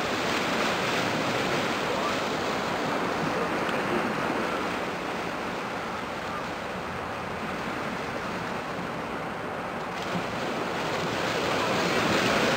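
Small waves washing on the shore in a steady hiss, with wind on the microphone; the wash swells louder again near the end.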